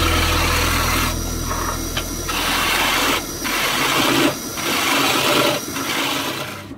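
Turning gouge cutting a spinning wooden blank on a wood lathe: a rough, hissing scrape that comes in passes about a second long, with short breaks between them.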